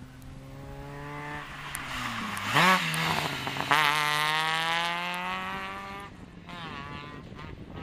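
Rally car engine revving hard as the car approaches and rushes past. About two and a half seconds in, the revs dip and jump briefly. The engine then pulls hard away with its pitch climbing steadily, changes up about six seconds in, and fades into the distance.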